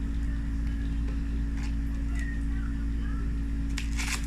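Steady low hum with scattered faint clicks and squelches of sticky slime being stirred and worked in a bowl, a busier cluster of them near the end.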